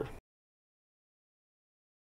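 The last syllable of a man's spoken narration, then dead digital silence with no sound at all.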